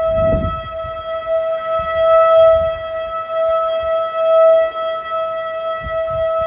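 Outdoor tornado warning siren sounding a steady alert tone: one held pitch that never rises or falls, swelling louder twice, with a low rumble of wind on the microphone underneath.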